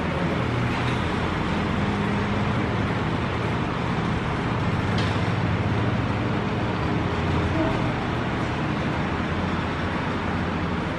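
Steady low rumble and hiss of outdoor background noise, with faint voices now and then.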